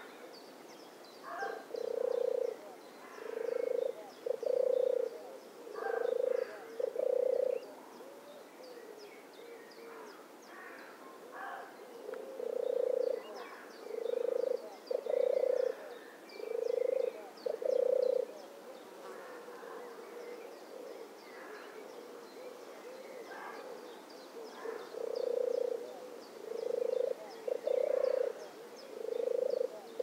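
European turtle dove (Streptopelia turtur) singing: repeated deep purring 'turrr' phrases, each under a second long, in runs of several with pauses of several seconds between runs.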